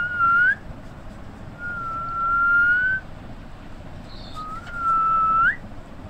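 Three long, level whistles on nearly the same note: one ending with a quick upward flick just after the start, one lasting over a second and rising slightly, and a last one near the end that finishes in a sharp upward slide.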